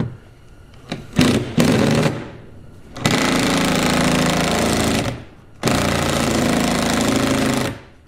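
Cordless impact driver hammering on the 10 mm bolt that holds a car door panel under the rear interior door handle: two short bursts, then two runs of about two seconds each. The bolt is starting to come loose, but the tool's battery is running weak.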